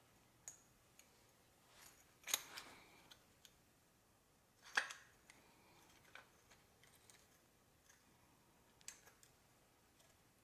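Light clicks and clinks of a Cummins ISX VGT turbo actuator's metal piston being handled while a seal is worked into its groove by hand; two sharper clicks come about two and five seconds in.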